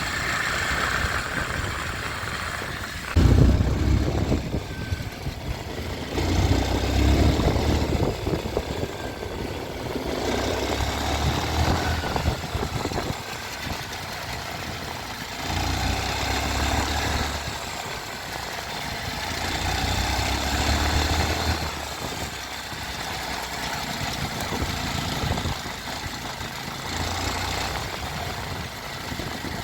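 TVS Sport 110 motorcycle's single-cylinder four-stroke engine idling, revved up and back down about six times. The owner says the engine makes a strange noise.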